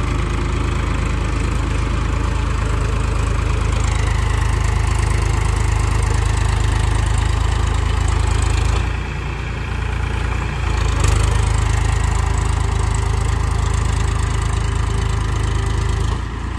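Powertrac Euro tractor's diesel engine running steadily under load while it pulls a rotavator through waterlogged mud. The sound eases briefly about nine seconds in and drops off suddenly just before the end.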